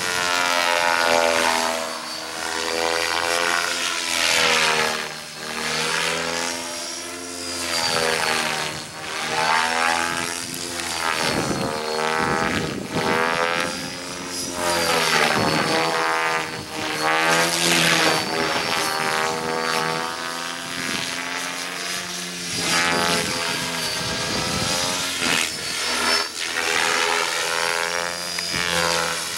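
Align T-Rex 600E Pro DFC electric RC helicopter in flight, its main rotor spinning at about a 2600 rpm head speed over the high whine of the electric motor. The pitch and loudness rise and fall over and over as the helicopter passes and manoeuvres.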